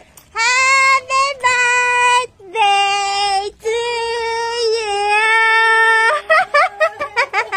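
A high voice singing a few long, held notes, the last held for over two seconds, then a quick run of short, sliding notes after about six seconds.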